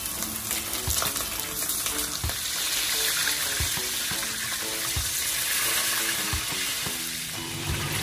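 A whole fish sizzling steadily as it fries in hot oil in a stainless steel wok.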